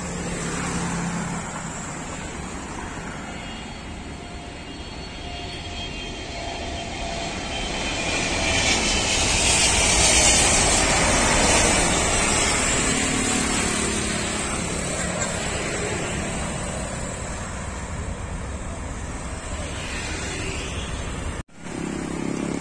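Jet noise of a Boeing 777-300ER's twin GE90 turbofans as the airliner comes in to land, swelling to its loudest about ten seconds in and then slowly fading. Near the end there is a sudden break, followed by road traffic.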